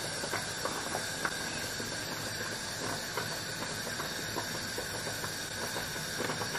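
Large pot of water at a rolling boil on a gas stove: a steady hiss, with faint small ticks and pops here and there.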